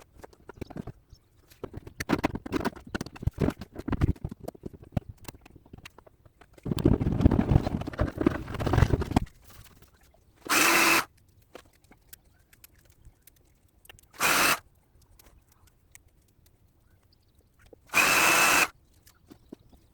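Workshop tool sounds: scattered clicks and knocks, then a couple of seconds of scraping handling noise, followed by three short bursts of a power tool, each under a second long.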